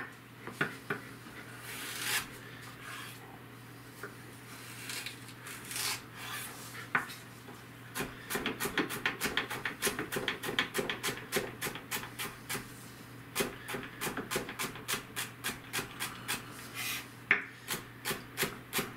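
Kitchen knife cutting celery stalks on a cutting board: scattered single cuts at first, then from about eight seconds in a quick steady run of chops, about four a second, with a short break in the middle.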